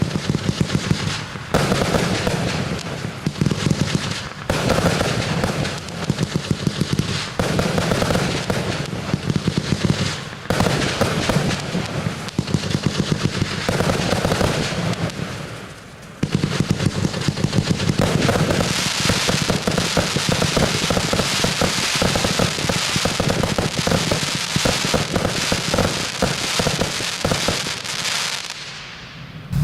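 Fireworks firing a fast, dense string of firecracker bangs in several long runs, each broken by a brief pause, fading out near the end.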